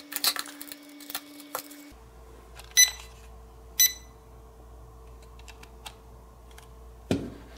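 Light clicks and taps of small plastic parts being handled, then two short high electronic beeps about a second apart, and a few faint ticks.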